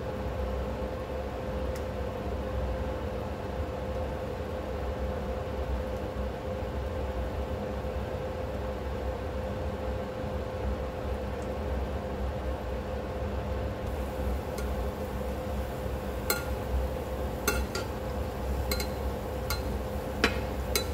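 Sweet potato balls frying gently in a pan of oil on low heat over a steady hum; in the last few seconds a spatula clinks against the pan several times.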